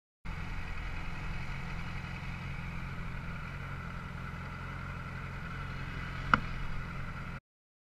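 Motorcycle engine running steadily, with one sharp click about six seconds in. It starts just after the beginning and cuts off abruptly near the end.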